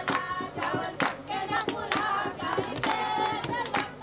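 A group of women singing together in chorus, with sharp hand claps keeping a regular beat.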